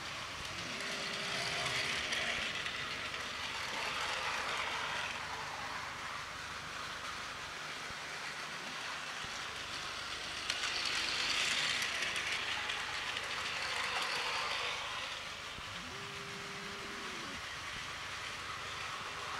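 Battery-powered Plarail toy train running on plastic track, its small motor and wheels whirring steadily and growing louder twice as it passes close by.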